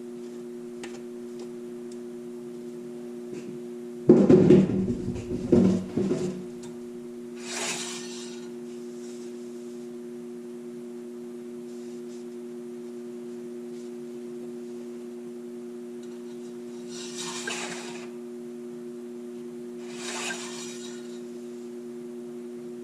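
A steady two-tone electrical hum. About four seconds in, a couple of seconds of loud knocking and handling clatter, then three short scraping, rubbing sounds spread through the rest: hands-on work at the engine while checking the oil level.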